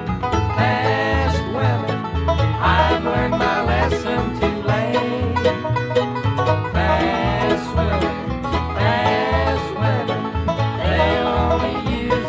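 Bluegrass band playing an instrumental break with banjo, guitar and bass. A lead line slides in pitch, in phrases that repeat about every two seconds.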